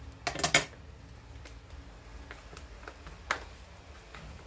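Cardboard packaging handled on a tabletop: a quick run of clicks and knocks about half a second in, then a single knock a little after three seconds.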